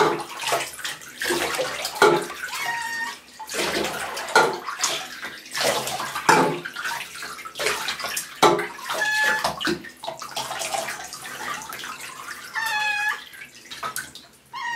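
Water splashing and sloshing in a bathtub as hands scoop it over a wet cat, in short repeated splashes. The cat meows a few times, short high calls at about 3, 9 and 13 seconds and again at the very end.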